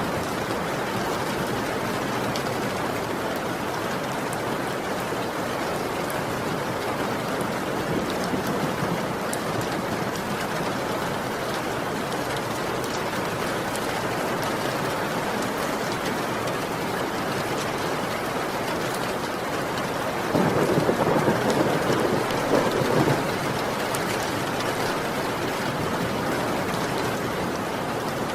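Steady heavy rain falling, with faint scattered drop ticks through it. About twenty seconds in, a roll of thunder swells up for a couple of seconds and fades back into the rain.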